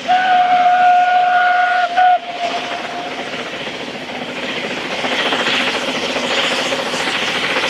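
Narrow-gauge steam locomotive's whistle: one long steady blast of nearly two seconds, then a short toot. After it the train keeps running, growing a little louder as it nears.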